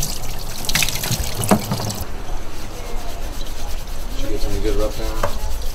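Water running from a hand-held hose onto an animal's wet fur while gloved hands rub it clean. The hiss of the water cuts off abruptly about two seconds in, and the rubbing goes on.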